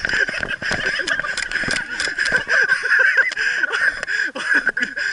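APS ACP 601 airsoft pistols firing in a quick, irregular exchange of sharp pops and clicks, with shouted voices in between.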